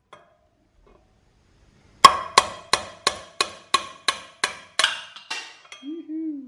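A hammer striking a steel drift through the hub to knock a worn rear wheel bearing out of a KTM 350 EXC wheel. There are about a dozen sharp metallic strikes at about three a second. They start a couple of seconds in and grow fainter toward the end.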